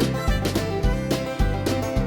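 Intro music with plucked strings over a steady bass beat.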